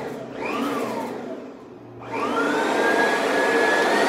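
Oreck XL Classic upright vacuum's motor, worked through its retrofitted two-speed switch: it whines up briefly and dies away, then starts again about two seconds in and runs with a steady whine that climbs to a higher pitch near the end.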